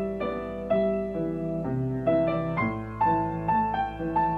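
Solo Yamaha grand piano played at a gentle pace: a melody of single notes struck about every half second over held bass notes.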